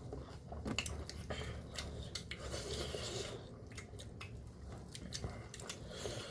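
Utensils clinking and scraping against dishes, with scattered light clicks.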